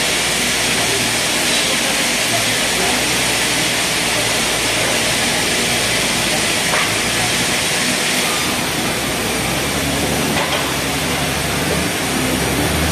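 Steady sawmill machinery noise: a loud, even hiss with a low hum underneath.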